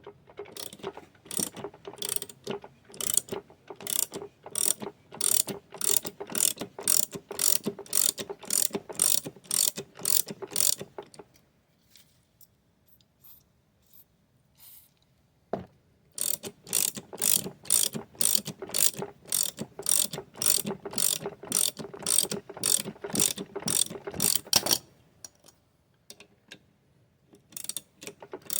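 Hand hacksaw cutting through a seized metal wheel hub on a Sears Suburban SS16 garden tractor, in quick even strokes about two to three a second, with a faint ring from the metal. The sawing stops for several seconds near the middle, with a single click, then resumes, pauses again, and starts once more near the end.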